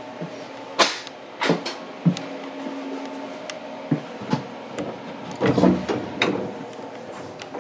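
Irregular footsteps and knocks walking through the car of a parked 227 series electric train, over a steady hum from the train's onboard equipment. The loudest cluster of knocks comes a little after halfway.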